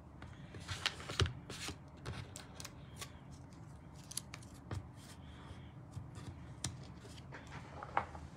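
Paper and cardstock being handled by hand: a series of irregular crisp rustles and clicks.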